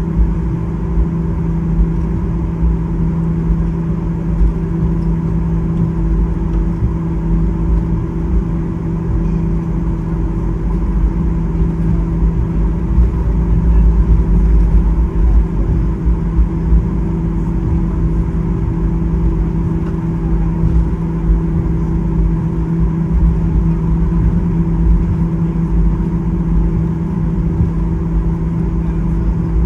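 Steady low rumble with a constant hum of a vehicle interior in motion or running, unchanging throughout.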